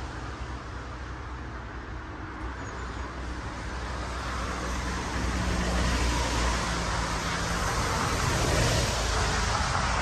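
A motor vehicle passing on a road, its engine and tyre noise building over several seconds, loudest in the second half, then starting to fade.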